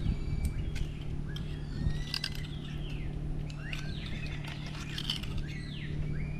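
Birds calling with many quick sweeping chirps, over a steady low hum and background noise, with a few sharp clicks.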